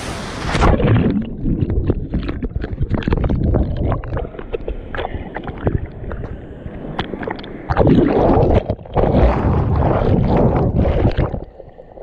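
A splash into a waterfall's plunge pool about half a second in, then churning, splashing water heard muffled, with the top end cut off, through a GoPro at and under the surface. The water surges loudest again from about eight to eleven seconds and eases near the end.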